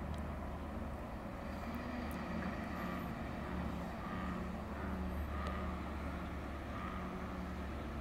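Bullfrogs giving mating calls: a run of low croaks, roughly one a second, over a steady low hum.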